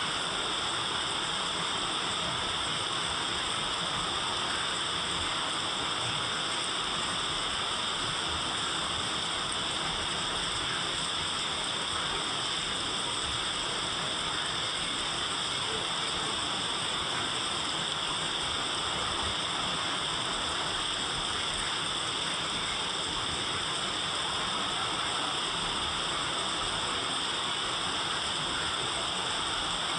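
Steady rain, an even, unbroken hiss with no single drops or gusts standing out.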